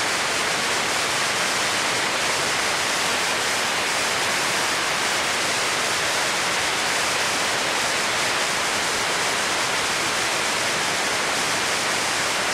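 Waterfall rushing steadily: an unbroken hiss of falling water that holds the same level throughout.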